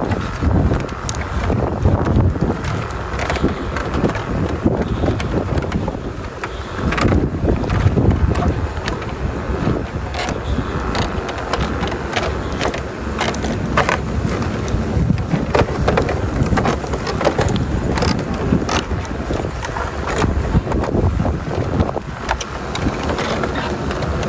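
A vehicle running along a bumpy track, with wind buffeting the microphone and irregular knocks and rattles throughout.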